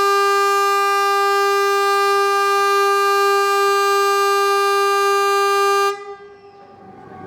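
Kockums Tyfon compressed-air civil-defence siren (Hesa Fredrik) sounding one loud, steady, single-pitched blast that cuts off about six seconds in. It is one roughly seven-second blast of the Swedish VMA 'important message to the public' warning signal, sounded here as a test.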